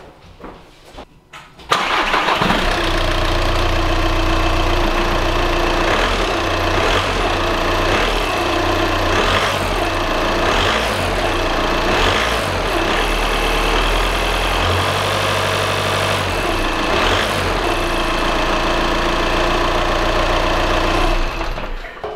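Volkswagen 2.0 TDI common-rail four-cylinder diesel (CFFB) starting for the first time after a timing belt replacement: it catches suddenly about two seconds in, idles steadily, and is switched off near the end.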